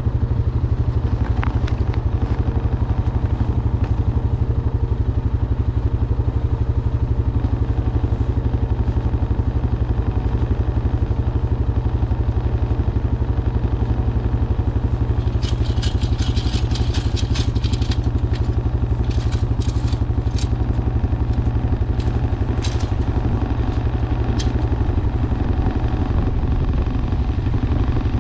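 Honda Foreman ATV's single-cylinder engine running steadily, with a cluster of sharp clicks and rattles from about halfway through.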